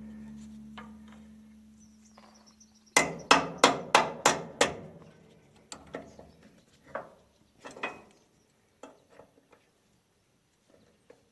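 Hammer striking metal on baler chain parts: a quick run of five sharp blows about three seconds in, then scattered lighter knocks and clinks. A low hum fades away before the blows.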